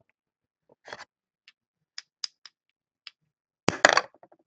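Trading cards and their plastic holders being handled on a table: scattered small clicks and scrapes, with a louder scrape near the end.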